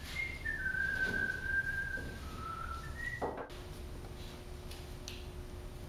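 Whistling: a slow tune of a few long, clear held notes that steps down and then up in pitch, cutting off abruptly about three and a half seconds in. A faint steady hum follows.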